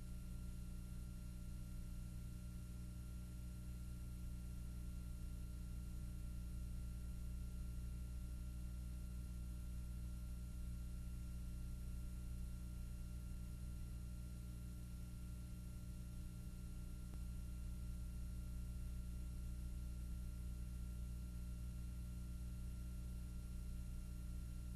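A steady low hum made of several constant tones, strongest in the bass, over faint hiss. It does not change.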